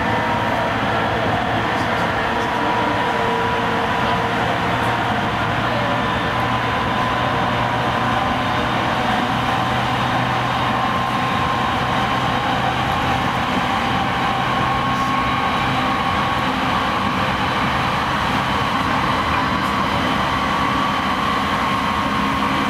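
Cabin of a JR East E217-series electric motor car running at speed: a steady rumble of wheels on rail, with a faint steady whine from the traction motors and gears under the floor.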